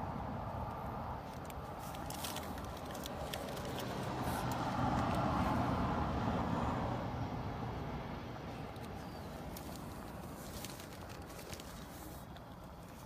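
Traffic noise: a vehicle passing, swelling to its loudest about five seconds in and then fading, with a few light clicks.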